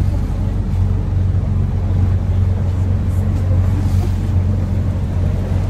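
Sightseeing boat's engine running steadily, a low even drone with a constant hum, heard from inside the passenger cabin.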